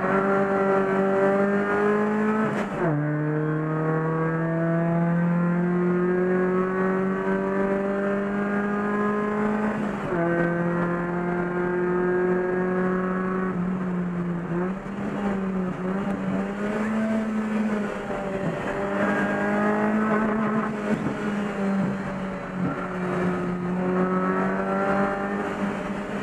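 Chevrolet Corsa race car engine heard from inside the cabin at full throttle. It rises in pitch as it pulls, with sudden drops at two upshifts about three and ten seconds in, wavers up and down through a slower stretch near the middle, then pulls steadily again.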